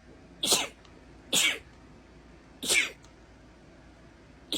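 A woman sneezing in a fit: three short, high-pitched sneezes about a second apart, each falling in pitch, with a fourth starting at the very end.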